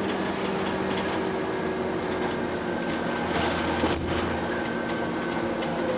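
Scania OmniCity double-decker bus on the move, heard from inside the passenger cabin: steady engine and road noise with a whine held through it, and rattles and knocks from the body panels and fittings, one sharper knock about four seconds in.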